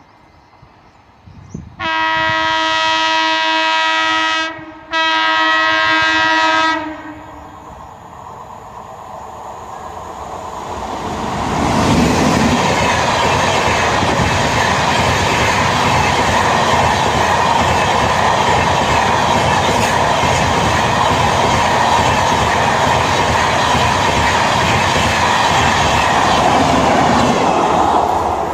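Jan Shatabdi Express locomotive sounding its horn in two long blasts, the second following a moment after the first. The train then approaches with a rising rumble and rushes past at speed, a loud steady roar of wheels and coaches for more than fifteen seconds.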